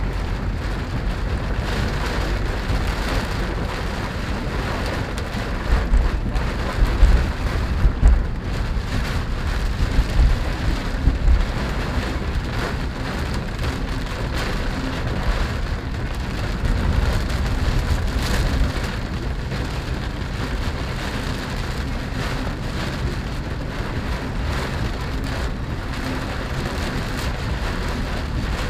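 Rain falling on the roof and glass of a Chevrolet Spark, heard from inside the cabin as it drives, over a steady low rumble of road and engine noise. A few louder low rumbles come between about six and twelve seconds in.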